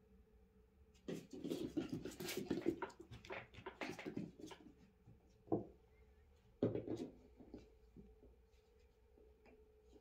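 Japanese spitz puppy moving and playing on a laminate floor: a quick run of claw clicks, scuffs and light knocks for a few seconds, then two single louder knocks.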